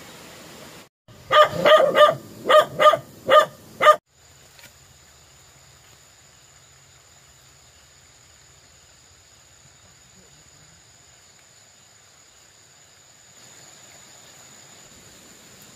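A dog barking, a quick run of about seven loud barks lasting some three seconds, that stops abruptly.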